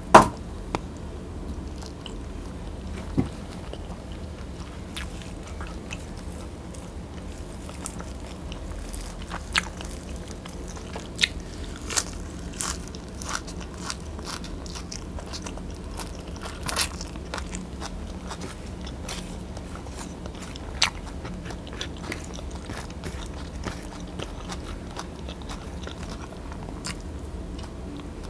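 Close-up mouth sounds of a person eating rice by hand: chewing with scattered short, sharp wet clicks and smacks, the loudest right at the start.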